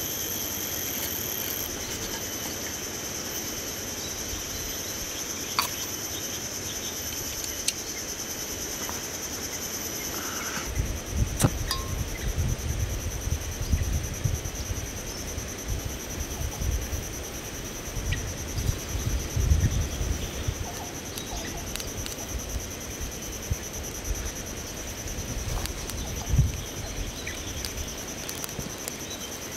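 Insects droning steadily at a high pitch, with a few light clicks. About a third of the way through, an uneven low rumble sets in underneath and continues, rising and falling.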